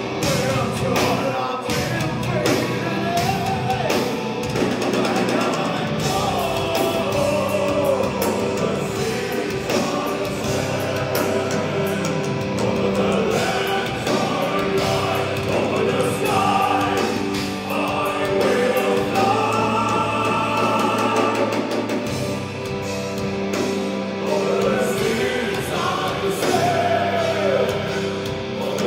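Live power metal band playing, with a sung lead vocal line over held chords from guitars and keyboards.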